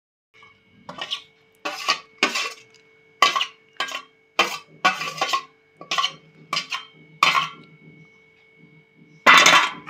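A steel spoon scraping and knocking against a steel bowl and plate, about a dozen short, sharp scrapes and clinks, with the loudest and longest scrape near the end.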